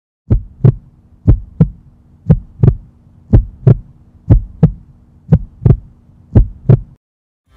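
Heartbeat sound effect: seven lub-dub double thumps, about one a second, over a faint steady low hum. It stops about seven seconds in.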